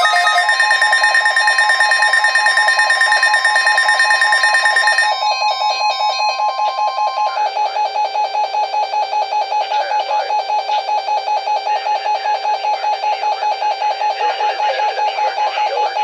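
Several NOAA weather alert radios sounding their alarm tones together after a Required Weekly Test: overlapping electronic beeps pulsing rapidly. Some of the tones cut off about five seconds in, while one radio's alarm keeps beeping.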